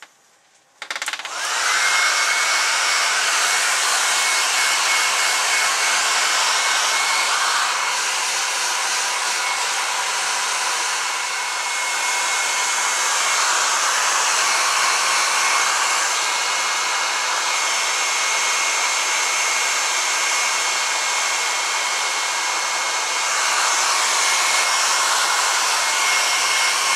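Handheld hair dryer switched on about a second in and blowing steadily onto a freshly mounted squirrel's fur, a loud rush of air with a steady high whine; the rush dips a little midway and swells again near the end as the dryer is moved.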